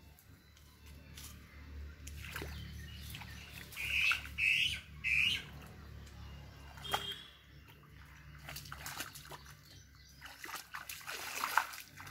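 Bare feet splashing and squelching through shallow muddy water, in scattered steps. About four seconds in, a bird chirps three times in quick succession.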